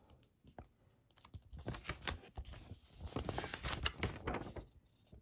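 Paper pages of a comic book rustling and crackling as it is opened and leafed through by hand, starting about a second in and dying away near the end.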